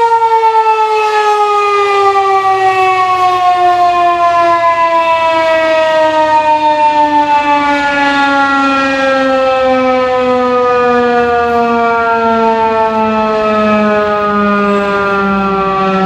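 Federal Signal 2001-130 outdoor warning siren winding down, its loud tone falling slowly and steadily in pitch as the rotor coasts down.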